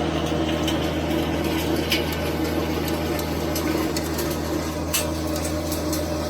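Kubota BX23S compact tractor's three-cylinder diesel running steadily, driving a 48-inch PTO rotary tiller through garden soil, with a few sharp clicks.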